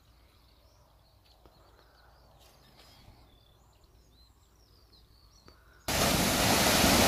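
Faint, scattered bird chirps over quiet air. About six seconds in, it switches abruptly to loud, steady sea surf washing and breaking on the shore.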